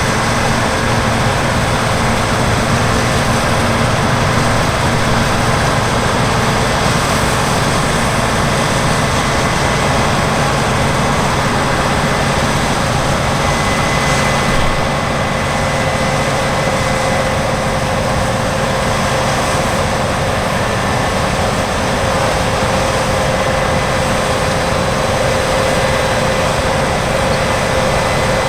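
Heavy harvest machinery running steadily under load, a continuous engine and drive noise with a faint constant whine.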